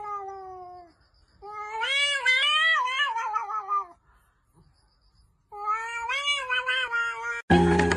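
Domestic cat giving three long, drawn-out meows, the first falling in pitch and the next two wavering up and down.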